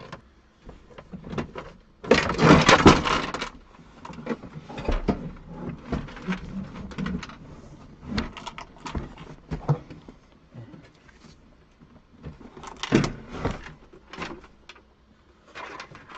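Scattered clicks, knocks and rustling from car parts and tools being handled. There is a louder, noisy scrape or rustle lasting over a second about two seconds in, and another about thirteen seconds in.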